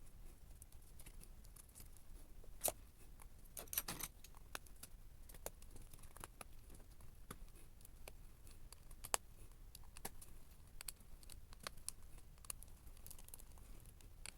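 Irregular light clicks and small metallic ticks of tools, screws and laptop parts being handled during reassembly, with a short cluster of them about four seconds in.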